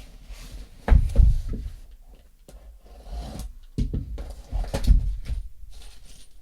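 Knocks and thumps of objects and packaging being handled on a table, with some scraping between them. The loudest thumps come about a second in and again around four to five seconds.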